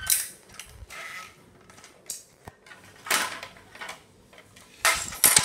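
Plastic LEGO Duplo train track pieces being handled and slid on a tiled floor: a few short scrapes and clatters, the loudest near the end.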